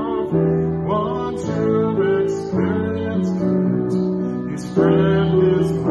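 A man singing a slow song to strummed acoustic guitar, holding each note with a slight waver.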